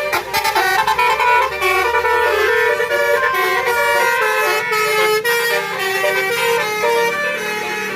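Bus telolet horn, a Basuri multi-trumpet horn, playing a tune of quick stepping notes without a break.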